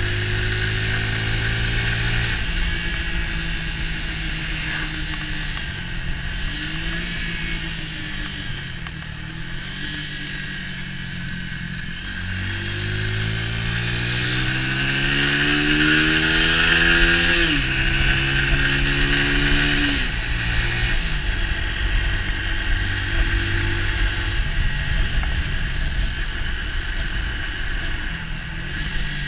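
Orcal Astor 125 motorcycle's 125 cc single-cylinder engine running while under way. It runs steady at first, then about twelve seconds in it revs up with a rising pitch. The pitch drops at a gear change a few seconds later and drops again about twenty-one seconds in, with a rushing hiss that is loudest while it accelerates.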